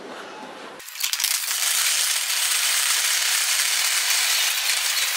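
Wire shopping cart rattling steadily as it is pushed along, heard up close from inside its metal basket. The rattle starts about a second in, as music fades out.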